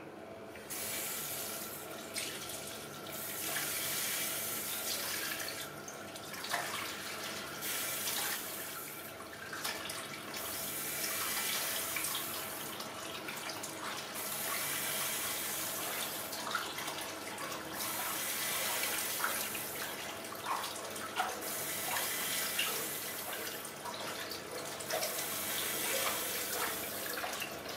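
Water running from a tap into a partly filled ceramic washbasin while a hand scoops and pours water over a baby monkey, with small splashes. The rush of water dips briefly every three to four seconds.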